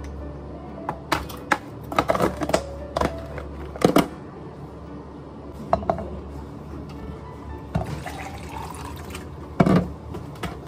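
Drink-prep clatter on a café counter: a metal scoop, plastic cups and containers knocking in a run of sharp clicks and clunks, with water poured into a plastic cup about eight seconds in. Soft background music and a steady low hum underneath.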